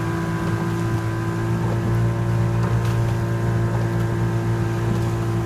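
Outboard motor of a coaching launch running at a steady speed, an even hum that holds one pitch.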